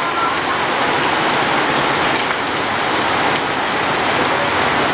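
Heavy rain falling steadily on wet brick paving, a dense, even hiss of splashing drops.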